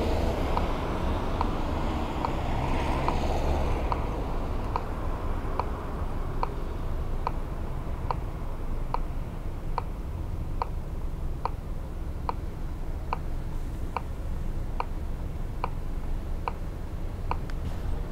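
Acoustic pedestrian-crossing signal for the blind ticking about once a second while the light is red. The ticks come faster near the end as the crossing turns green. Low traffic rumble runs underneath.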